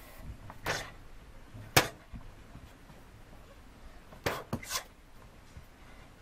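A few short, sharp slaps from a boy's bare-handed and barefoot punches and kicks during shadowboxing on a mat: one loud crack about two seconds in and a quick run of three just past four seconds.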